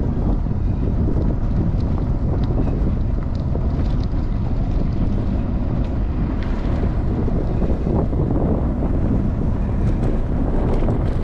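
Steady wind rumble buffeting the microphone of a cyclist riding along a dirt road.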